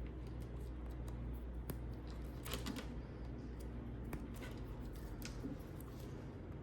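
Hand snips or cutters snipping through a plastic piece of a headlight wiring harness, splitting it in half: a few short, irregular snips and clicks over a low steady hum.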